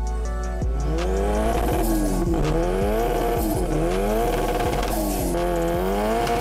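Car engine revving up and dropping back again and again, about five rises and falls, heard from inside the cabin. Background music fades out in the first second.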